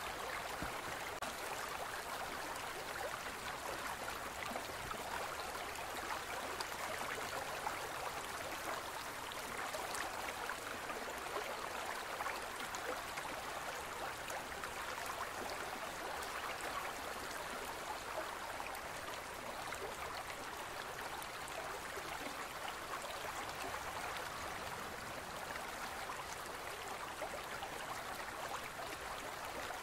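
Gentle stream running over rocks: a steady rush of flowing water with fine bubbling and splashing.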